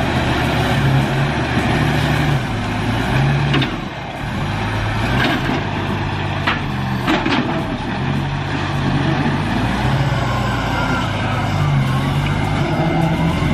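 Heavy diesel machine engine running and revving up and down, with a few short, sharp sounds near the middle.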